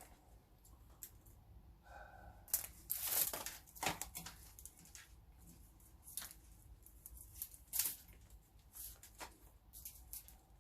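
Plastic tape wrapping being unwound and peeled off a cable: irregular rustling, crinkling rips, busiest about three to four seconds in.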